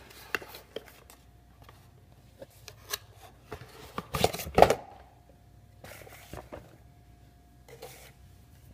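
Handling noises from a microwave popcorn popper and its box: scattered clicks, taps and rustles, with a louder burst of rustling and knocks about four seconds in. A faint steady hum follows.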